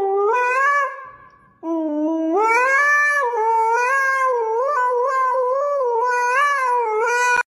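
Husky howling into a toy karaoke microphone: a short howl that fades out about a second in, then, after a brief gap, a long wavering howl that rises and holds for several seconds before cutting off sharply near the end.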